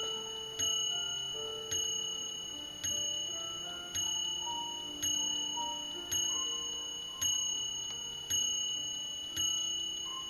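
Vintage German eight-day mechanical mantel clock striking the hour: nine evenly spaced strokes a little over a second apart, each a clear high ring that fades before the next. They are part of its ten o'clock strike.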